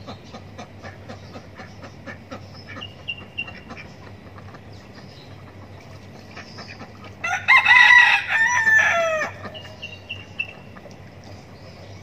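A rooster crows once, a call of about two seconds that falls in pitch at the end, starting a little past the middle. Faint clucking from hens can be heard before and after it.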